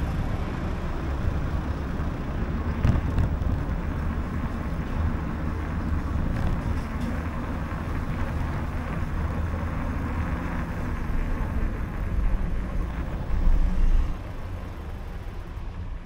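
City street traffic ambience heard while cycling, with a steady low rumble that swells briefly about two seconds before the end.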